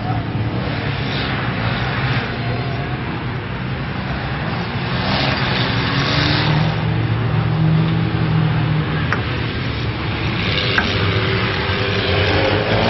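Off-road vehicle engines running on a dirt track, the engine pitch rising and falling as they rev.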